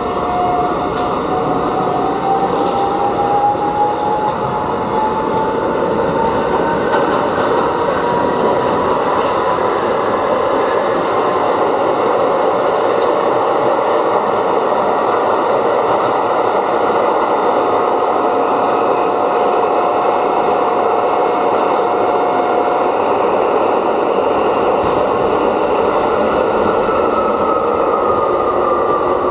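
An R68 subway car running, heard from inside the car: a steady loud rumble with a motor whine that rises in pitch over the first several seconds as the train gathers speed. A falling whine comes in near the end.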